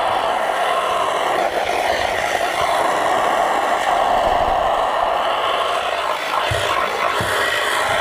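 Steady rushing hiss of a high-pressure water jet blasting underwater against a steel hull, with a few low thumps near the end.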